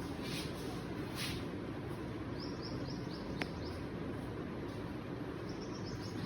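Steady background noise with a small bird chirping in two quick series of short high notes, and a single sharp click about halfway through.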